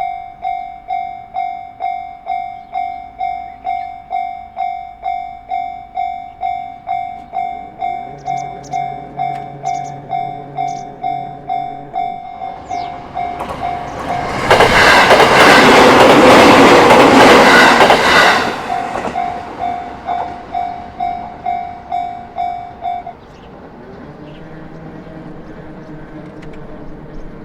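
Japanese level-crossing alarm ringing its repeated electronic bell about one and a half times a second. A JR Narita Line train passes through the crossing for about four seconds, loud enough to drown the bell. The bell stops a few seconds after the train has gone.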